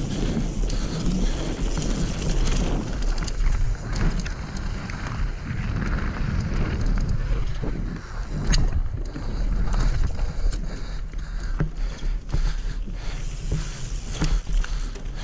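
Mountain bike running fast down a dirt and gravel downhill trail: a steady rumble of tyres on the ground and wind on the microphone, with frequent rattles and knocks from the bike as it rolls over roots and stones, the sharpest about eight and a half seconds in.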